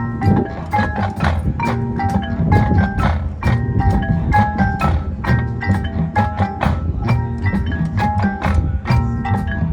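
Marching show band music, led by mallet percussion with a quick run of struck, ringing notes over a dense low accompaniment.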